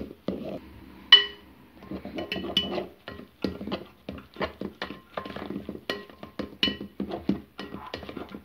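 Wire whisk beating thick chocolate cake batter in a bowl as flour is worked in, the wires clinking against the bowl's side in an uneven run of two or three ringing clinks a second, the sharpest about a second in.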